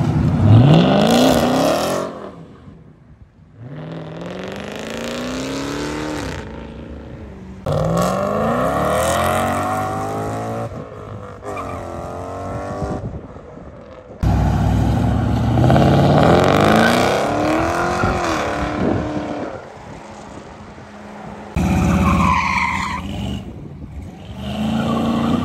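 Several cars accelerating hard one after another in short cuts, among them a Dodge Challenger, a Ford Mustang and a Pontiac Grand Prix. Each engine revs up with rising pitch, then drops back and climbs again as it shifts gear.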